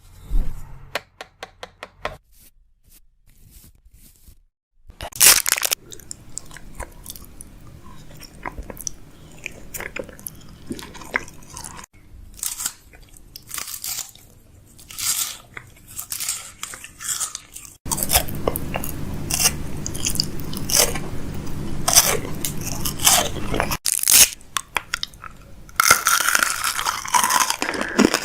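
Close-up crunching, clicking and tapping handling sounds, changing in character every few seconds.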